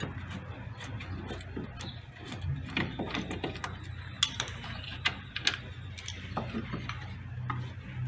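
A screwdriver backs out a screw from the plastic motor shield under a washing machine, then the shield is worked loose and pulled off. The sound is a string of scattered small clicks and knocks of metal and plastic.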